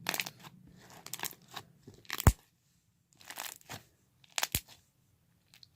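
Slime being squeezed and stretched in the hands: irregular crackles, squelches and small pops, with a sharper snap about two seconds in and again near the end.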